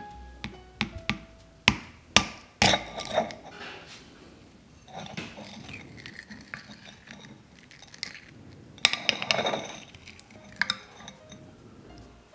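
A metal teaspoon tapping and cracking the hard caramelised sugar crust of a crème brûlée in a ceramic ramekin: a run of sharp cracks and clinks in the first three seconds, then grainy crunching as the spoon breaks through and digs into the custard, loudest about nine seconds in.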